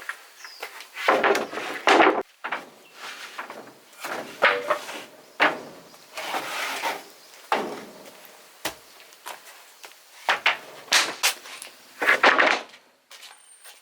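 A string of irregular wooden knocks and scrapes as timber is handled and worked in building a log wall.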